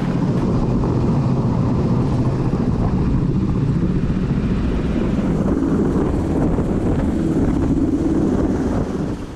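Navy Seahawk helicopter hovering low overhead with a slung cargo load, its rotor and turbine engines running loud and steady. The sound drops away abruptly near the end.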